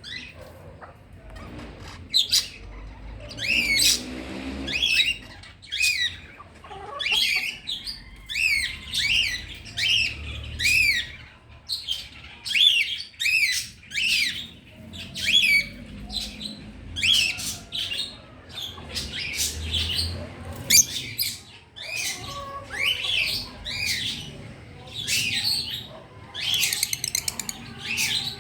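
Birds squawking: a continuous run of short, high calls, each rising and falling in pitch, about one to two a second.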